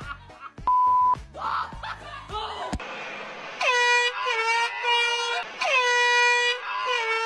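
An air horn blasting four times in quick succession, each blast a long single-pitched honk, starting about halfway through. A short steady beep sounds about a second in.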